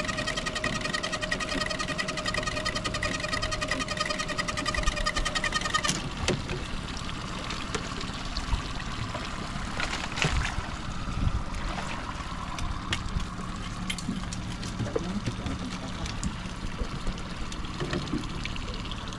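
A small motor whines steadily and stops abruptly about six seconds in. Then water splashes and trickles, with scattered clicks and knocks.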